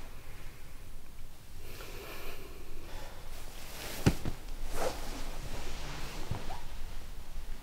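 A heavy breath, then rustling clothes and a sharp click about four seconds in as a man shifts forward on a couch, with a few faint ticks after.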